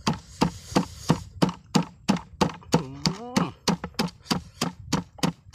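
Stone pestle pounding red chillies in a granite stone mortar: a steady run of dull thuds, about three strokes a second.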